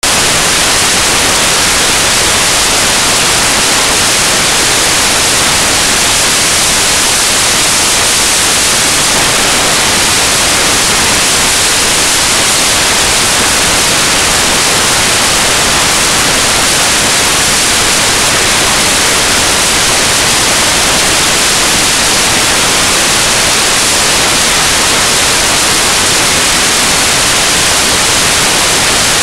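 Loud, steady static hiss, even throughout and strongest in the high pitches, with no street sounds standing out from it.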